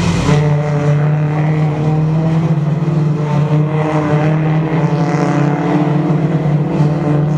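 Engines of Toyota Corolla Altis race cars running hard as several cars come through a corner one after another, with a slight rise and fall in pitch.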